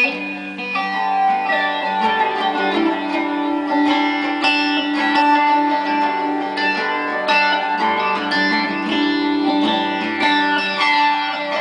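Acoustic guitar amplified through its pickup and an amp, with chorus, flanger and delay effects on: a run of picked notes, each ringing on and overlapping the next.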